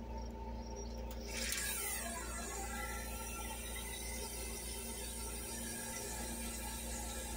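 Semaphore signal mechanism moving its arm up: a short whir about a second in that falls in pitch as it settles, over a steady low hum.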